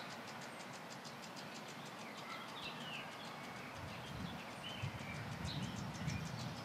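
Faint birdsong: short, scattered chirps over a low background hiss, with a low rumble coming in about four seconds in.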